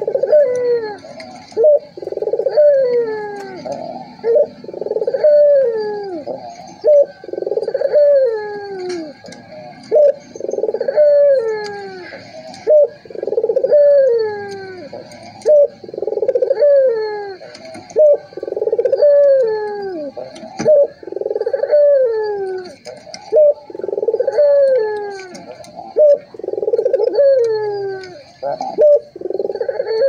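Puter (Barbary dove) cooing over and over, a loud coo about every second and a half, each sliding down in pitch, with short sharp notes between them.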